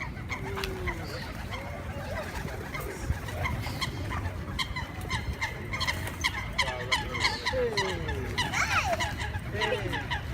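A flock of waterfowl calling, many short overlapping honks, with a burst of louder calls near the end.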